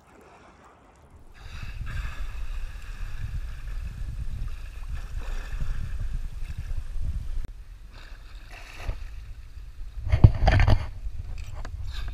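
Water sloshing and splashing against a kayak's hull, with a low rumbling rush starting about a second and a half in. A short, louder splash comes about ten seconds in.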